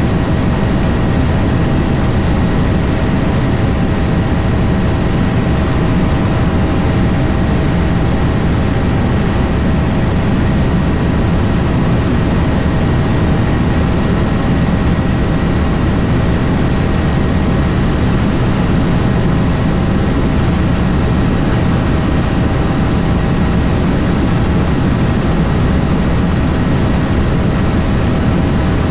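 Helicopter running steadily in flight: a constant loud rotor and engine drone with a thin, high, steady whine above it.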